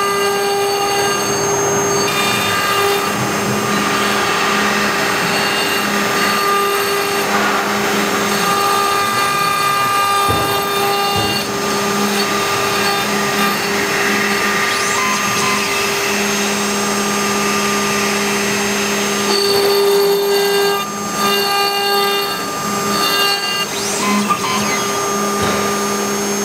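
CNC engraving router at work on a bottle: the spindle whines steadily while a small engraving bit cuts the bottle's surface under water coolant, with a grinding hiss from the cut. A lower motor hum from the machine's axis drives switches on and off several times as the bit moves.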